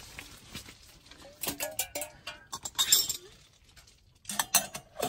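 Metal clinks and scrapes of a stainless steel kettle lid being handled and set onto the kettle, in a few separate clusters.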